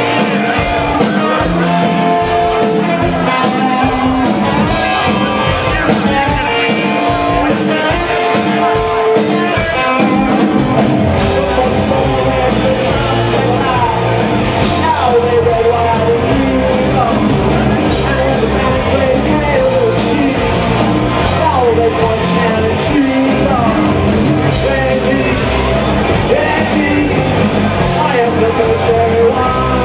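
Live rock band playing loud with vocals. A sharp, steady drum beat carries the first part, then about a third of the way in the bass comes in and the whole band plays fuller.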